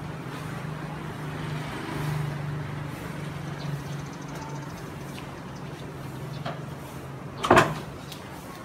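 A steady low motor hum, with one loud sharp knock near the end.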